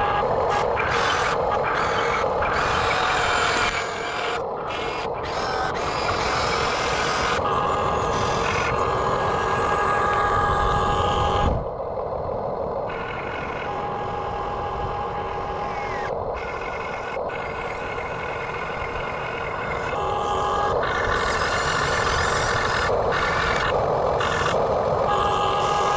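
Radio-controlled backhoe excavator working, a steady mechanical noise with a high steady tone that switches on and off several times for a second or two at a time, like a reversing beeper.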